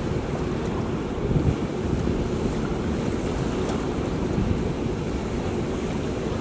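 Steady rush of turbulent water below a dam spillway, with wind buffeting the microphone.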